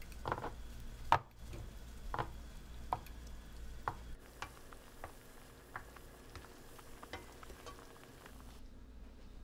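Clicks and knocks of a bladed roller meat tenderizer pressed and rolled over a raw steak on a plastic cutting board. About four seconds in, this gives way to lighter ticks of a wooden spatula stirring a simmering sauce in a stainless frying pan, with a faint sizzle.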